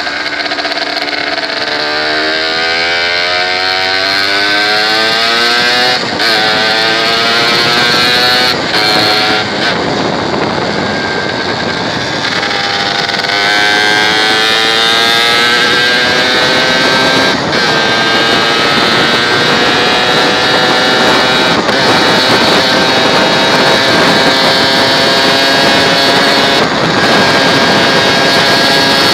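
Motorcycle engine accelerating hard up through the gears. Its pitch climbs steadily, then breaks off briefly at each gear change, about five times, over a steady rush of wind and tyre noise.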